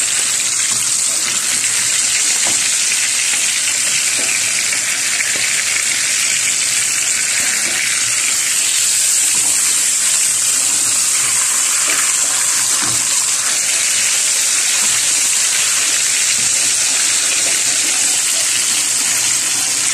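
Flour-dredged beef cutlets sizzling in hot oil in a frying pan, a steady hiss as they brown, with a few light clicks of a fork turning them.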